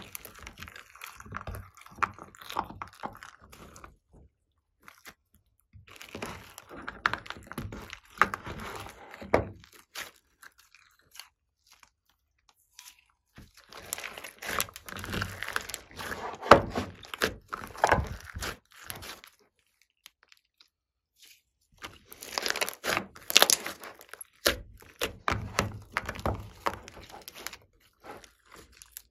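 Hands squeezing and kneading glossy slime mixed with modelling-clay hearts in a plastic tray: wet squelching with dense crackling and popping clicks. It comes in four bursts of a few seconds each, with short silent pauses between them.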